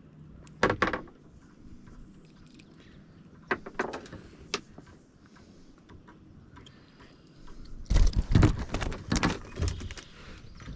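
Knocks, thumps and clatter against a kayak's hull while a freshly caught bluegill and tackle are handled: a few isolated knocks, then a loud cluster of thumps about eight seconds in.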